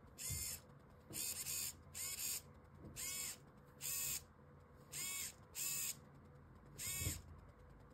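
SG90 micro servo whirring through its plastic gears as it swings back and forth, driving a 3D-printed rack and pinion: about nine short bursts, each under half a second with a whine that rises and falls, separated by short pauses.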